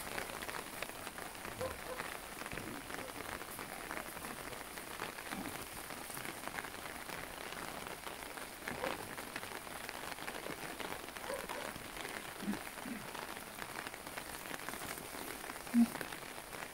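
Light rain pattering steadily on open umbrellas, a dense haze of small drop ticks. A brief low tone sounds once near the end.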